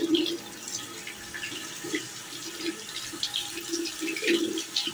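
Small wet handling sounds: irregular soft clicks and rustles, with short muffled low sounds in between.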